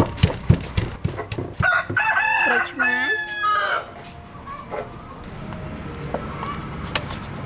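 A wooden pestle knocking a few times in a wooden mortar, then a rooster crowing once for about two seconds, the longest and most prominent sound.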